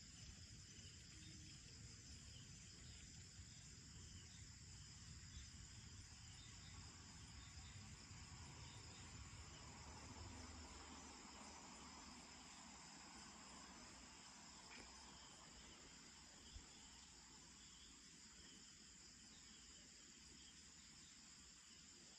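Near silence with a faint steady chorus of crickets chirping at night, and a low rumble underneath that fades out about halfway through.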